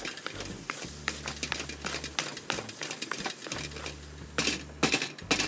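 Wooden spatula scraping and knocking against a stainless-steel kadai while stirring and turning a thick, sticky halwa: a run of irregular clicks and scrapes, with louder scraping strokes near the end.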